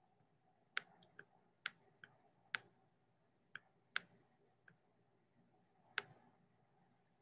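Faint computer mouse clicks, about ten at irregular intervals, as the button is pressed and released to handwrite on screen.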